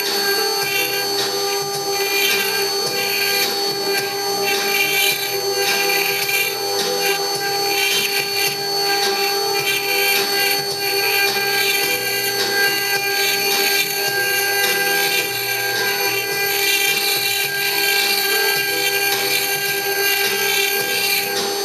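A 4-axis CNC router's spindle running with a steady whine while the bit cuts, the cutting adding an uneven scratchy hiss over the whine.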